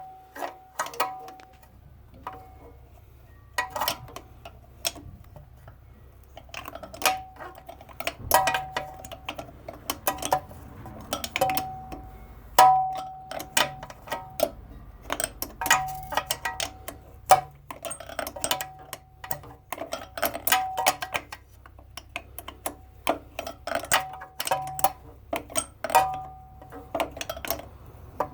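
Ratchet wrench clicking in irregular runs while backing out the starter bolts on an opposed-twin mower engine, with a short metallic ring after many of the clicks.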